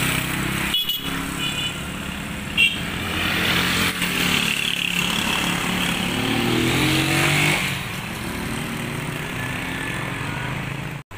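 Motorcycle engines running on the road, one growing louder through the middle and passing by, with a brief sharp high sound about two and a half seconds in.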